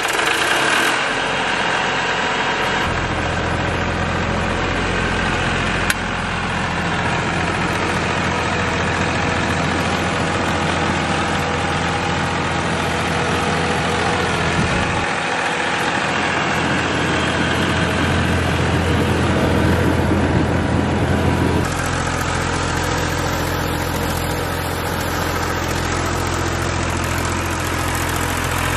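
Massey Ferguson 241 DI tractor's three-cylinder diesel engine running steadily under load while pulling a mouldboard plough through the soil. The engine note changes abruptly a few times.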